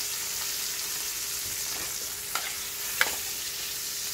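Sliced chicken sizzling in a hot nonstick frying pan, a steady frying hiss. Two sharp clicks of metal tongs against the pan come about two and a half and three seconds in, as the pieces are turned.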